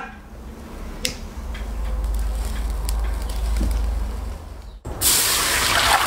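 A steady low rumble with a single click about a second in, then, about five seconds in, a sudden loud rush of water poured into a large metal wok.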